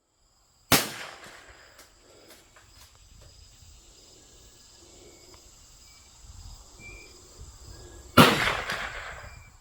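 Two gunshots about seven and a half seconds apart, each followed by an echoing tail; the second rings on longer.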